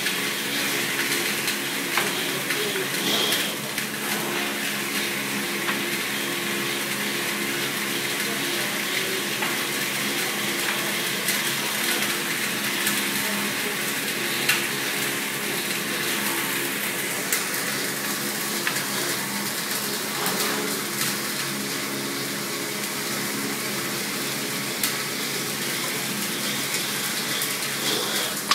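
Round-stick woodworking machine running steadily, its cutter head planing square wooden blanks into round shovel and broom handles, with a steady hum under the cutting noise and occasional sharp knocks of wooden sticks.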